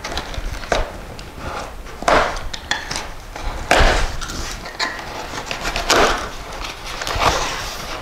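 Rummaging in a cardboard box of hydraulic cylinders: cardboard rustling and scraping with irregular knocks as the heavy parts are shifted and lifted.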